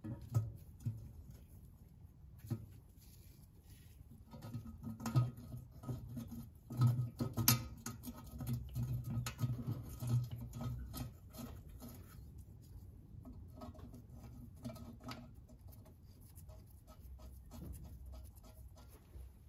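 Scattered clicks, scrapes and light metal knocks of hand work on the rusty steel rear differential cover of a Mity Kat mini bulldozer, busiest in the middle of the stretch and thinning out toward the end.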